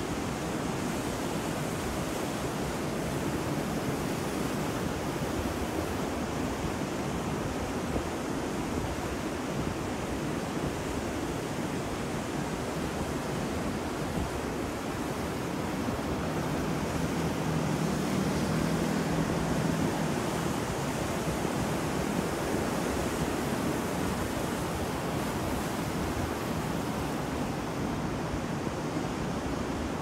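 Rough surf breaking on a beach: a continuous rush of waves that swells a little louder a bit past the middle.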